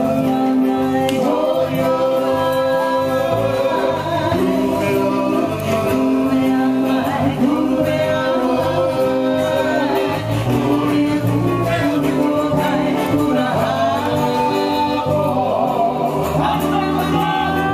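Polynesian song with singing voices over an instrumental accompaniment, played for dancers performing on a canoe.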